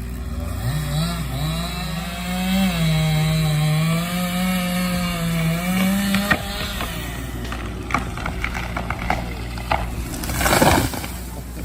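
Chainsaw running under load, its pitch wavering as it cuts, for about the first six seconds, then stopping. Scattered sharp knocks follow, and a loud noisy burst comes near the end.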